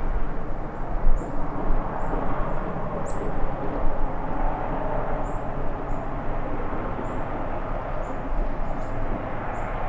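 Steady rushing outdoor noise in the woods, with about ten short, very high chirps from a small bird scattered through it.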